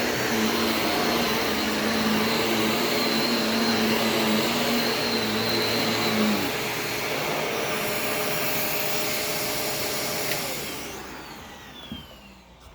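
Shark Navigator DLX Swivel upright vacuum cleaner running steadily, then switched off about ten seconds in, its motor whine falling in pitch as it spins down.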